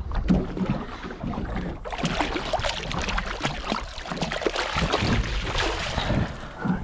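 Water splashing as a hooked mahi mahi thrashes at the surface beside the boat and is scooped up in a landing net. The splashing starts about two seconds in and runs until near the end, over a low rumble of wind on the microphone.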